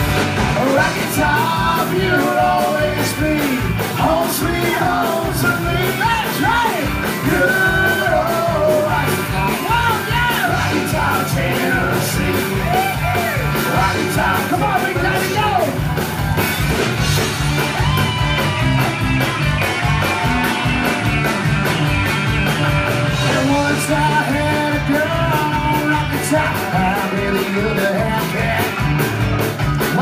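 Live band music played loudly with a steady beat, banjo and electric guitars, and singing over it.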